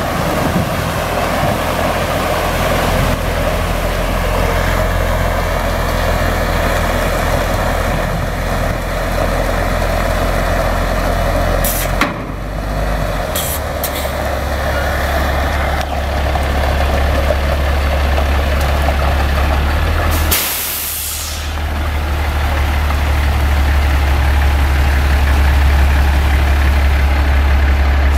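Chevy C7500 water truck's Caterpillar C7 diesel running steadily at low speed under the hiss of water spraying from its rear spray bar. About twenty seconds in, a short sharp burst of air hiss. After it the spray hiss thins and the diesel is heard more plainly.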